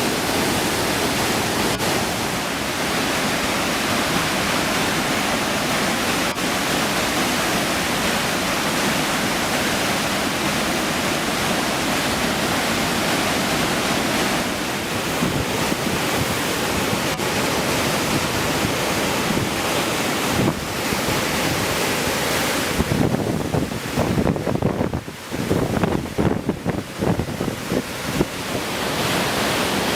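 A river swollen by floodwater, rushing steadily. The sound turns rougher and uneven for several seconds near the end.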